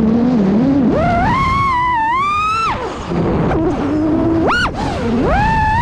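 6S FPV racing quadcopter's brushless motors whining, the pitch swooping up and down with the throttle: a low whine that punches up to a high whine about a second in, drops back, chirps up briefly near the middle, and climbs again near the end, over a rush of prop wash.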